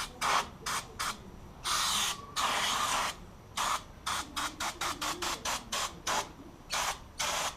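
Aerosol chain cleaner hissing from a spray can onto a motorcycle chain, in many short bursts with two longer sprays about two seconds in.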